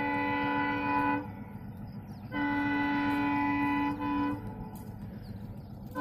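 Horn of an Alco WDM-3A diesel locomotive sounding in long, steady multi-tone blasts. One blast ends about a second in and another runs from about two seconds to four, followed by a short toot. The horn starts again right at the end.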